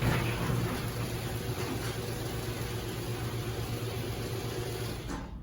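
LiftMaster garage door opener motor running steadily as it drives the door closed with the wall button held down, the override needed while the safety sensors are out of alignment. The motor hum cuts off about five seconds in as the door reaches the floor.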